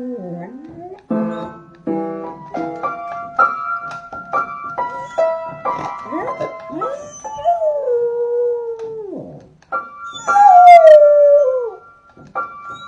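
A puppy howling over piano notes: a run of piano notes, then two long wavering howls that slide down in pitch, the second about ten seconds in and the loudest.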